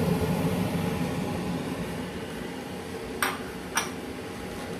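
Steady hiss of fried rice cooking in a stainless steel pan, then two sharp clinks of kitchenware about half a second apart, a little past three seconds in.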